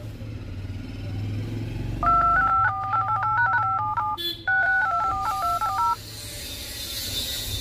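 Dual-tone keypad beeps from a Redmi 9A/9C smartphone's phone dialer as digits are tapped in quickly, in two runs with a short pause between them, over a steady low hum.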